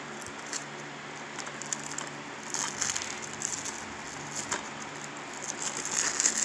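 Plastic shrink-wrap on a DVD case crinkling and crackling as fingers pick and tear at it, in spells that are thickest about halfway through and near the end.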